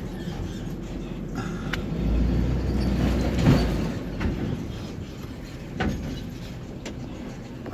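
A vehicle on the move: steady engine and road rumble, swelling for a couple of seconds about two seconds in, with a few sharp knocks and rattles.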